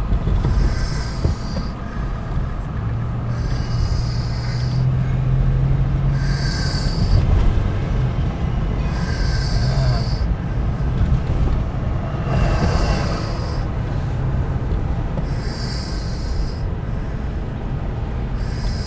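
Road and engine noise heard from inside a car driving in city traffic, with a low hum that swells for a few seconds and a soft hiss that comes and goes about every two and a half seconds.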